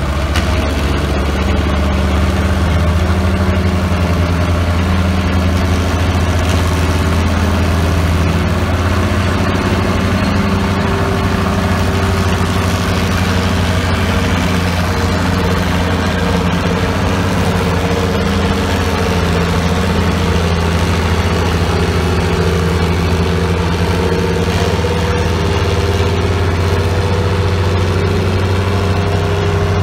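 Two vintage tractor engines, a Minneapolis-Moline's and a red tractor's hitched in tandem, running hard under load as they pull a weight-transfer sled, a steady engine sound that wavers slightly in pitch.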